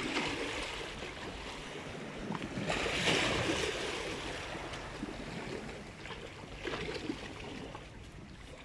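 Sea waves washing against a rocky shore, with one louder surge about three seconds in, and some wind on the microphone.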